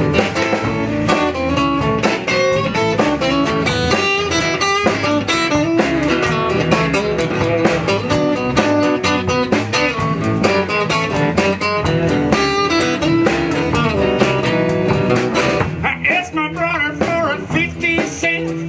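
Live band playing with two strummed acoustic guitars, an electric guitar and a drum kit keeping a steady beat. Near the end the band drops back and a bending lead melody comes in.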